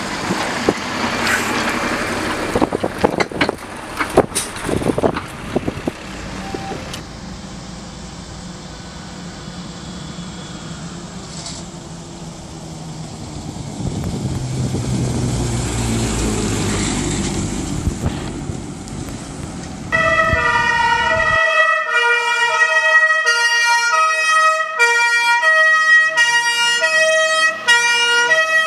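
Fire trucks driving past: road and engine noise, with a truck's low engine rumble rising and falling as it passes. About two-thirds of the way in, a loud two-tone fire-engine siren (German Martinshorn) starts, alternating between two pitches.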